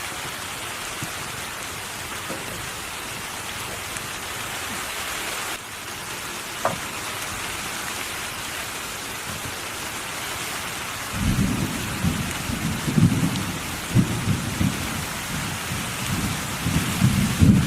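Steady rain falling, a constant hiss. About two-thirds of the way in, a low, uneven rumbling starts and grows louder toward the end, like thunder rolling.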